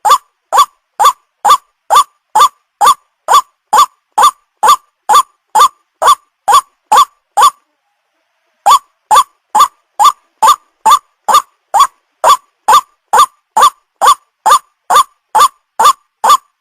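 White-breasted waterhen lure call: one short upward-sweeping note repeated about twice a second, with a pause of about a second midway.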